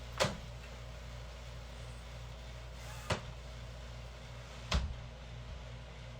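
Three sharp knocks and clunks of a window being opened and shut, about three seconds and then under two seconds apart, the last the heaviest, over a steady low room hum.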